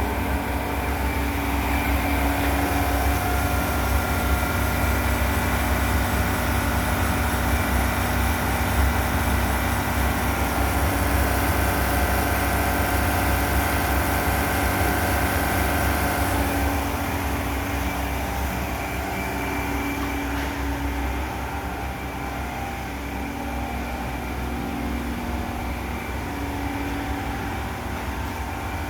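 Tube ice machine running: a steady mechanical hum with a low rumble and several held tones. A little over halfway through, the high hiss drops away and the sound becomes somewhat quieter.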